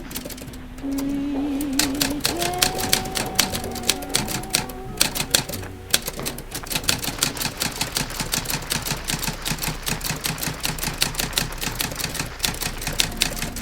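Vintage typewriter keys clacking in a rapid, steady run of typing. Under them, a radio song's closing held notes waver and die away about five seconds in.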